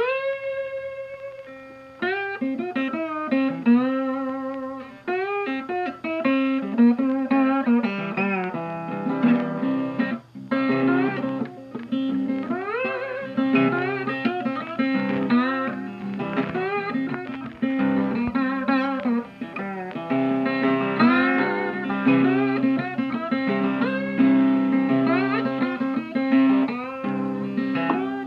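Instrumental Americana guitar music, its notes sliding and bending in pitch over a steady low accompaniment.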